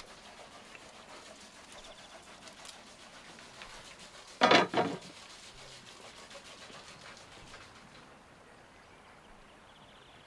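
Two loud knocks in quick succession, about a third of a second apart, like a hard object being struck, over a faint outdoor background with a few small clicks.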